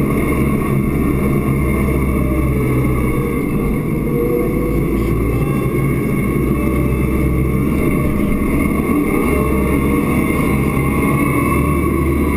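Massey Ferguson tractor engine running steadily under load while pushing a wide front snow plow, heard from inside the cab, with steady whining tones above the engine hum.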